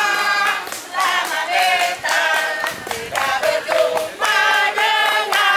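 Several voices singing a song together in held phrases with short breaks.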